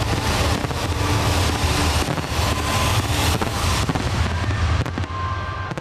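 Fireworks display: dense crackling and bursts over a continuous low rumble, dying down about five seconds in.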